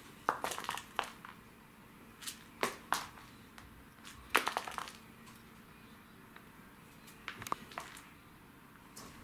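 A cat teaser wand and its ribbon flicked over a laminate floor while a Thai cat pounces and scrabbles at it: about four short bursts of sharp clicks and crinkly rustling, the loudest about four seconds in.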